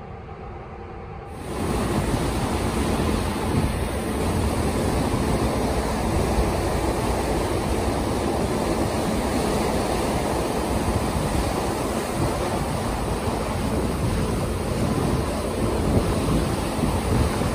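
Steady rushing noise of a cargo ship's bow wave foaming along the hull, mixed with wind buffeting the microphone, starting abruptly just over a second in.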